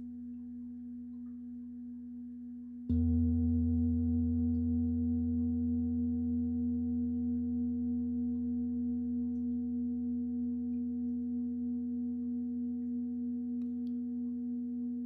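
A large singing bowl is struck about three seconds in, over the fading ring of an earlier strike. Its deep, steady tone and higher overtones ring on with a slow, gentle waver in loudness.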